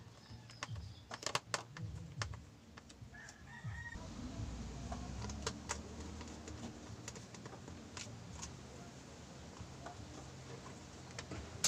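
Clicks and taps of small hand work on a plastic light fixture: a screwdriver driving a screw into the speaker housing, and the plastic parts and wires being handled and fitted, with the sharpest clicks about a second and a half in. A low hum runs underneath.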